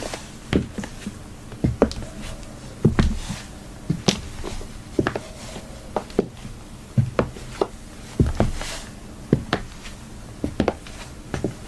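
High-heeled shoes clicking on a hard floor: sharp heel strikes, some with a dull thud beneath, coming unevenly about once or twice a second.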